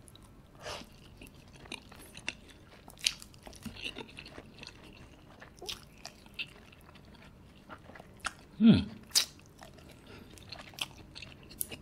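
Close-miked chewing and wet mouth smacks from eating cheese-covered dumplings, with many short, scattered clicks. One louder, short, falling hum comes about two-thirds of the way in.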